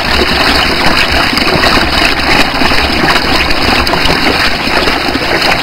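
Water running steadily through a tabletop dam model, pouring through its V-notch weir and splashing into the basin below: a loud, even rush.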